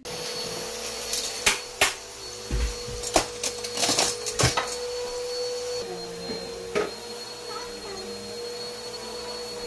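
A steady whirring hiss with a constant hum, broken by several sharp clicks and knocks, as dough dumplings fry in oil in a pan.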